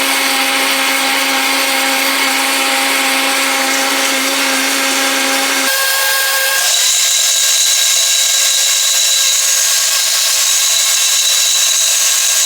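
Countertop blender running continuously, blending a protein shake of oat milk, banana and protein powder. Its tone changes a little under halfway through.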